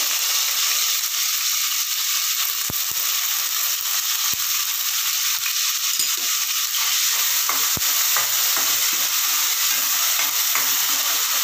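Finely chopped onion frying in hot oil in a kadhai, a steady sizzle, with a few light knocks of the stirring spoon against the pan.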